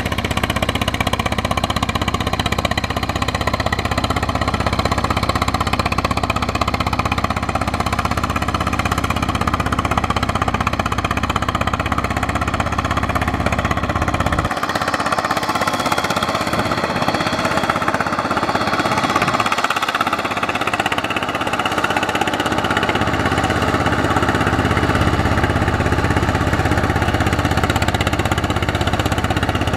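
Single-cylinder diesel engine of a two-wheel tractor chugging steadily under load as its steel cage wheels churn through a flooded rice paddy. About halfway through the deep rumble drops away for several seconds, then comes back.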